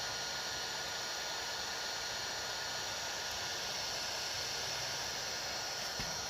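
Steady hiss with a few faint, constant high tones running under it, and a small click near the end.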